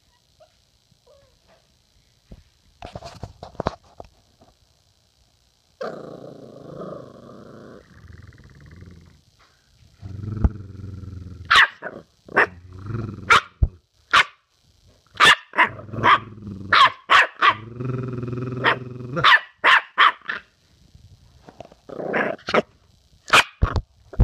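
Jack Russell terrier puppy growling low, then barking in repeated short sharp barks mixed with more growls. It starts quietly and gets going a few seconds in.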